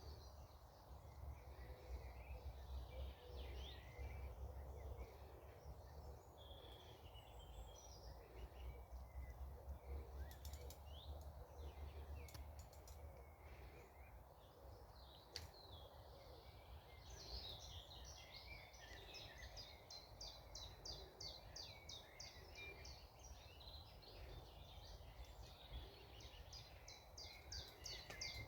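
Faint small birds singing and calling. In the second half one bird repeats a rapid call of about four to five notes a second. A low steady rumble runs underneath.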